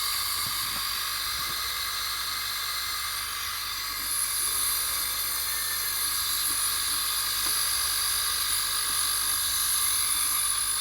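Homemade air compressor running steadily, pumping air into its storage drum, a high whine over a hiss. About four seconds in, a higher-pitched whine joins and it gets slightly louder.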